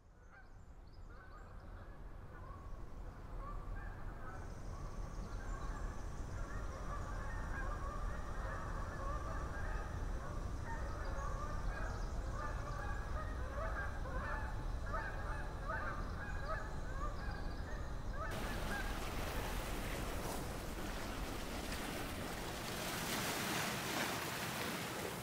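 A flock of birds calling over and over, many short overlapping calls. About eighteen seconds in they give way to a steady rushing noise.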